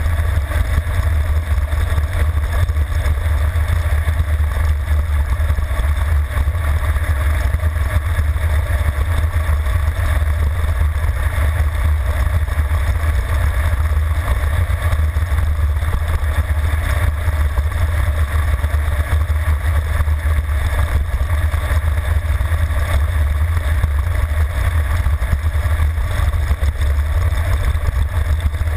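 Steady rush of wind buffeting the microphone of a handlebar-mounted camera on a road bike descending at high speed. The deep, loud rumble runs on without a break.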